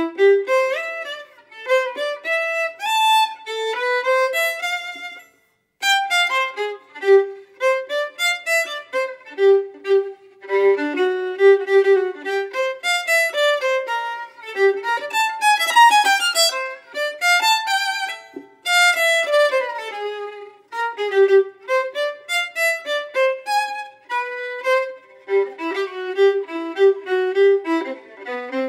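Background violin music, a melody of quick notes, with a brief pause about five seconds in.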